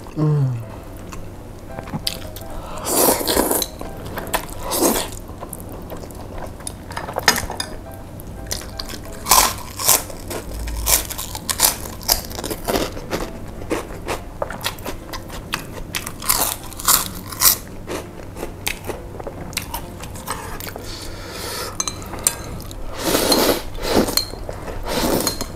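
Close-miked eating of spicy chicken noodles (mie ayam): wet chewing, crunchy bites and noodle slurps, with a longer slurp from a small bowl near the end.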